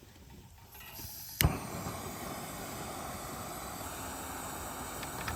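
A single sharp click about a second and a half in, then a steady rushing hiss.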